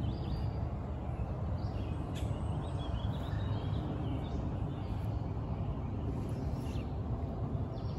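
Steady low outdoor rumble, with faint bird chirps now and then.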